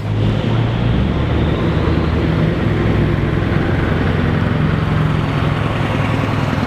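A motor running steadily under a loud hiss, starting abruptly and holding an even level.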